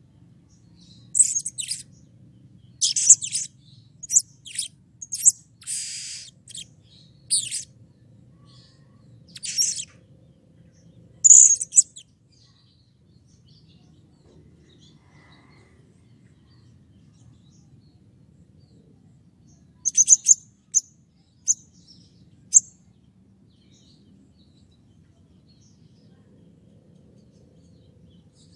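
Blue-crowned hanging parrot (serindit) giving shrill, high-pitched chirping calls in quick succession for about the first twelve seconds, falling silent, then calling again in a shorter run about twenty seconds in.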